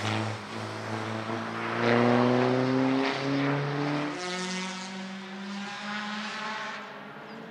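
Škoda Fabia RS race car's engine running hard, its note climbing gradually. About four seconds in, the sound switches abruptly to a different, steadier engine note.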